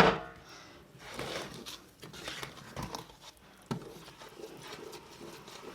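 Kitchen handling noise while batter is moved into a cake pan: a loud metallic clank that rings briefly at the start, then soft scraping and rustling with a sharper knock partway through.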